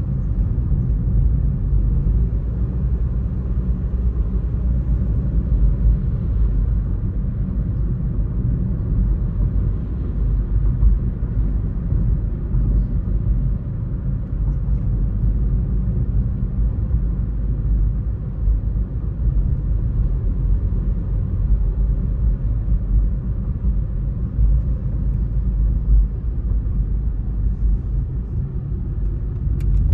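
Steady low rumble of a car driving on a city road: engine and tyre noise.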